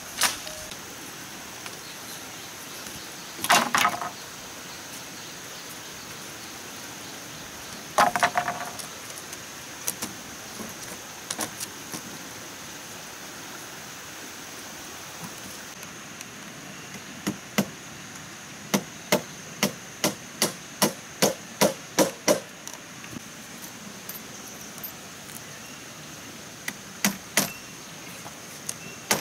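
Hammer striking bamboo: scattered loud knocks at first, then an even run of about a dozen blows at roughly two a second, and a few more near the end. A steady high insect drone runs underneath.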